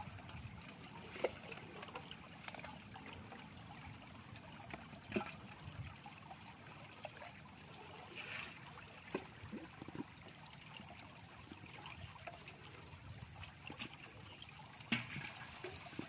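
Shallow water trickling steadily, with a few short splashes and knocks scattered through, the loudest near the end.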